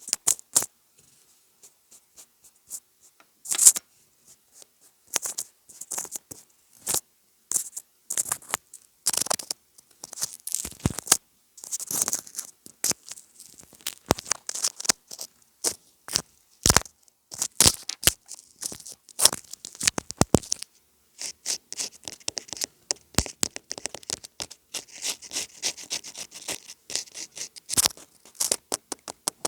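Close-miked scratching and tapping on a homemade ASMR gadget: irregular crisp taps and short scratchy strokes, growing into denser, continuous scratching in the second half.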